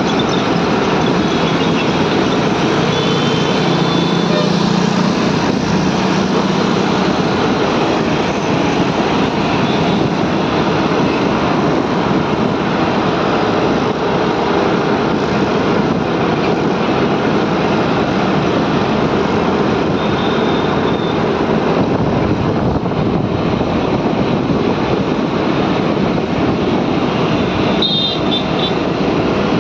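Steady rush of wind over the microphone and road and traffic noise while riding along a busy city road, with engines of motorcycles and auto-rickshaws around.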